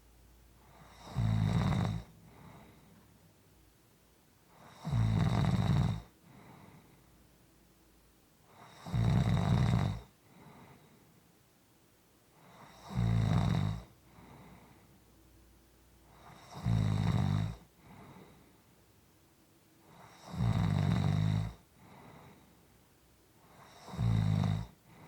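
Steady snoring: a low, fluttering snore about every four seconds, seven in all, with quiet breathing between them.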